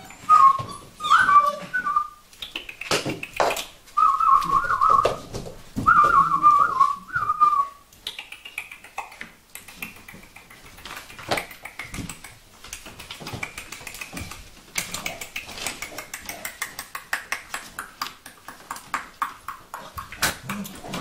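Vizsla puppies whining: several loud, wavering cries in the first eight seconds, then fainter whimpers over a run of small clicks and scratches from puppy claws on the wooden box floor.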